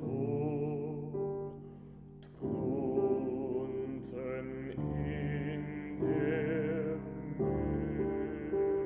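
Art song: a baritone singing slow, held notes with vibrato over grand-piano chords. The music thins out briefly around one to two seconds in, then new chords come in every second or so.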